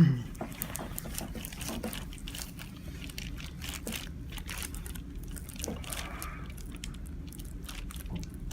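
Hands rubbing lotion into a person's upper back and trapezius muscles: skin-on-skin massage with many small, irregular clicks.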